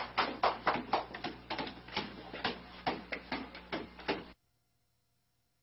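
A basketball bounces quickly and unevenly on a hard floor as a dog dribbles it, about four to five taps a second. The sound cuts off abruptly about four seconds in.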